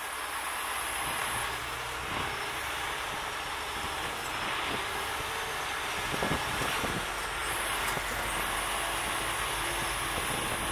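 Heavy rotator tow truck's diesel engine running steadily while its hydraulic boom works, with a constant low hum.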